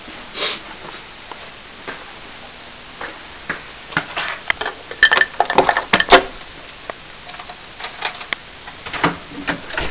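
Irregular light clinks and rattles of loose objects and fittings in a room shaking during an earthquake, thickening into a dense clatter about halfway through.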